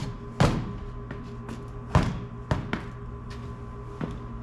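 Background music with steady held tones, broken by a few sharp thuds and knocks, the loudest about two seconds in.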